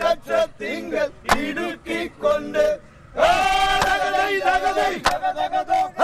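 Group of men singing vanchipattu, the Kerala boat song, in chorus: short rhythmic phrases, then a long held line about three seconds in, with two sharp claps.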